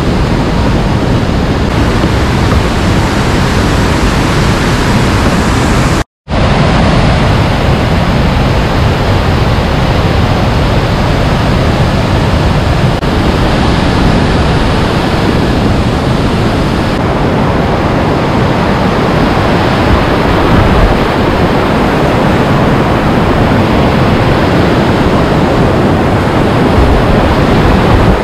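Loud, steady rush of river whitewater from a wide waterfall and its rapids. The sound drops out completely for a moment about six seconds in.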